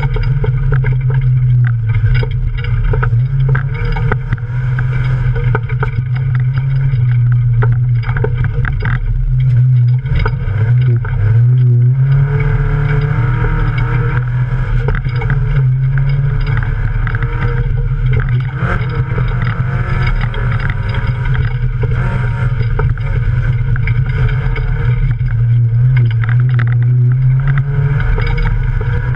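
Off-road race car's engine running hard, heard from inside the cabin, with frequent short knocks and rattles over rough ground. The engine pitch dips briefly and picks up again about ten to twelve seconds in.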